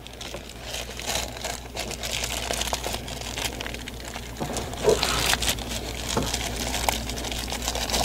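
Thin plastic parts bag crinkling and rustling as gloved hands open it and take out a new switch, with many small crackles that keep going.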